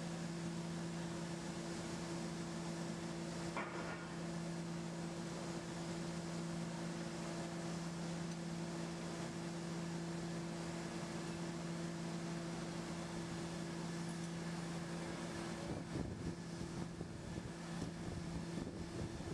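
Steady machinery hum, a constant low drone with an even hiss over it, with some uneven rustling and knocking in the last few seconds.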